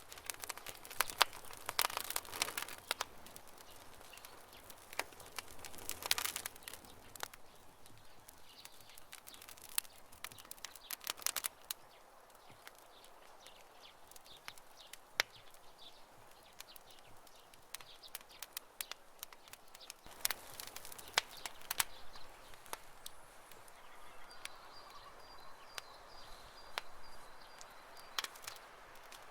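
Wood campfire crackling, with irregular snaps and pops that come in bunches of rapid cracks. A faint high pulsing trill joins near the end.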